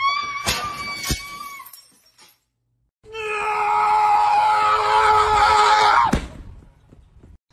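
A green parrot calls in a wavering pitch with a few sharp knocks and wing flaps. After a short gap comes a loud, long scream of about three seconds that cuts off suddenly with a thump.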